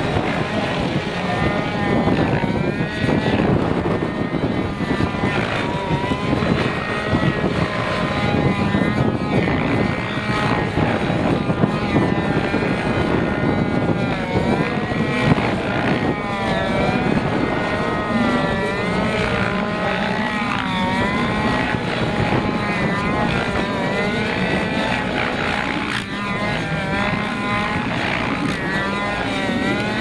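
Petrol-engined Wiplash model helicopter with a rotor of about 1.7 m flying aerobatics: the engine and rotor blades run continuously, their pitch swinging up and down again and again as the helicopter manoeuvres and passes back and forth.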